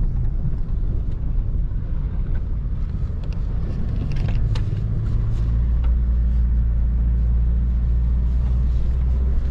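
A vehicle's engine and road rumble heard from inside the cabin, with a few knocks and rattles. About halfway through, the rumble settles into a steady, even drone.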